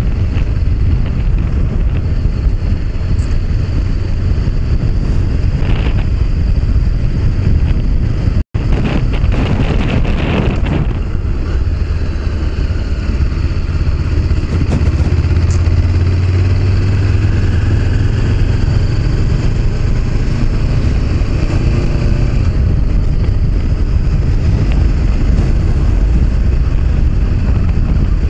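Honda CB500X parallel-twin engine running steadily at road speed, with wind rushing over the bike-mounted action camera's microphone. The sound cuts out for an instant about eight seconds in.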